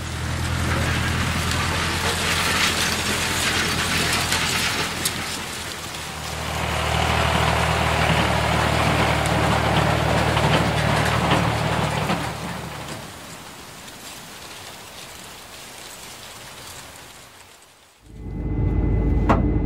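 Combine harvester running: a steady low engine hum under a dense rattling hiss. The hum dips briefly about six seconds in, then the whole sound fades out over the last few seconds.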